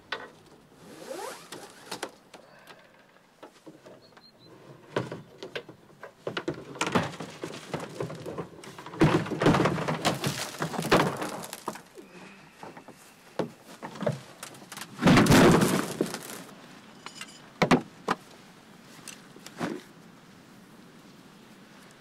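Knocks, thunks and rustling as a plastic kayak is unstrapped, lifted off a car's roof rack and carried. The loudest handling noise comes about fifteen seconds in, followed by a few single knocks.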